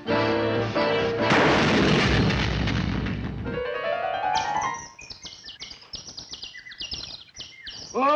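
Cartoon soundtrack: orchestral music, then a loud crash-like noise about a second in, a rising whistle-like glide, and a rapid run of short high chirping, tapping sound effects.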